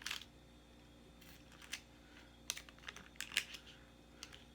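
Irregular, short, crisp clicks and crunches of a person chewing crispy fried food close to the microphone, about eight of them, the loudest a little after three seconds in.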